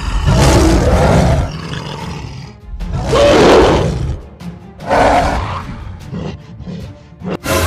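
A giant ape roaring three times, each roar about a second long, over background music.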